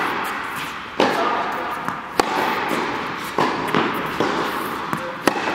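Tennis balls struck by rackets in a rally, with bounces on the court: a sharp crack every second or so, each one ringing on in the echo of a large indoor tennis hall.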